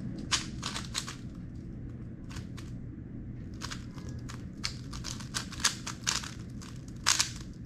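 Plastic 3x3 speedcube clicking and clacking as it is turned fast, in quick bursts of turns broken by short pauses, with the loudest burst about seven seconds in. A steady low hum runs underneath.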